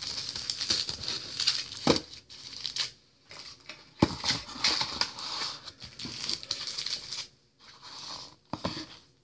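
Crinkling and rustling as mini packs of quilling paper strips are handled one after another, with a few light knocks.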